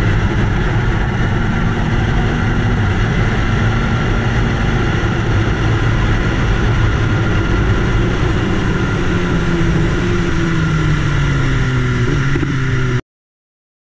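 Onboard sound of a BMW S1000RR sport bike at speed: steady wind rush over the microphone with the inline-four engine running underneath. In the last few seconds the engine note falls, and the sound cuts off suddenly near the end.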